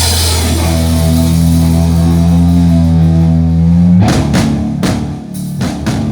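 Rock band with drum kit and guitar holding one sustained chord, then crashing out a run of sharp hits together about four seconds in, the way a song ends.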